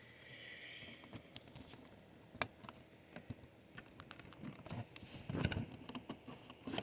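Hands handling and working at a shipping package to open it: scattered small clicks, taps and scrapes with a sharper knock about two and a half seconds in, and busier handling near the end.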